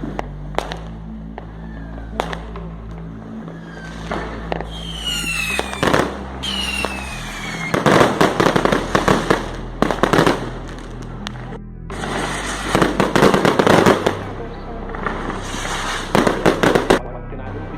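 New Year fireworks going off: scattered bangs, two falling whistles about five seconds in, then dense crackling barrages of rapid pops, over background music with a steady low bass.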